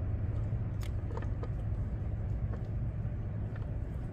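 Faint light clicks and knocks of parts being handled as a throttle body spacer is slid over the throttle body and seated, over a steady low rumble.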